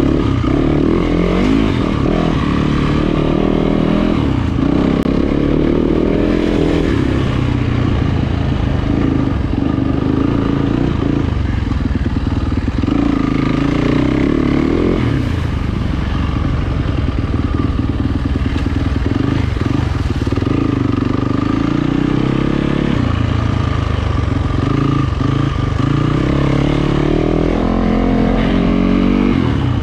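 2020 Yamaha YZ450FX's single-cylinder four-stroke engine being ridden, its revs rising and falling again and again with the throttle.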